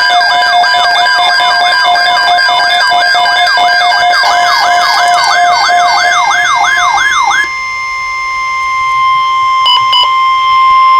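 Emergency alert attention tones: an electronic siren-like wail sweeping up and down about three times a second, then about seven and a half seconds in a single steady tone that grows louder and cuts off sharply. It is the alert signal that comes before a severe thunderstorm watch announcement.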